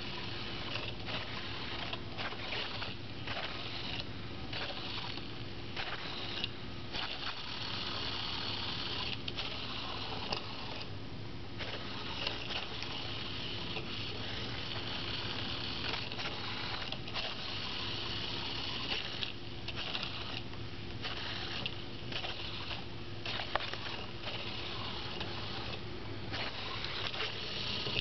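Pololu 3pi robot's small geared drive motors whining as it follows the line, cutting out for a moment again and again as it stops forward motion to centre itself on the line.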